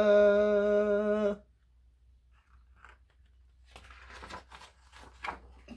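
A woman's voice holds a long, steady 'whaaaa' that cuts off about a second and a half in. Then a picture book's page is turned, a faint paper rustle lasting about two seconds.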